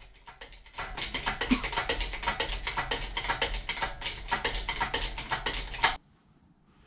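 Rapid, irregular clicking and rattling from an engine hoist lifting a heavy milling-machine knee casting. It stops abruptly about six seconds in.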